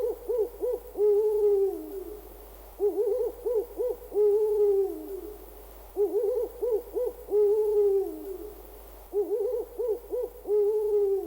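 Owl hooting: a quick run of short hoots followed by one longer hoot that falls away at the end. The phrase repeats four times, about every three seconds.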